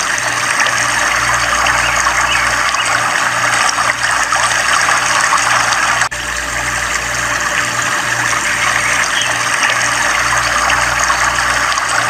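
Water running and trickling into a miniature diorama pool from a small pump, with a low hum pulsing about twice a second underneath; a brief break about six seconds in.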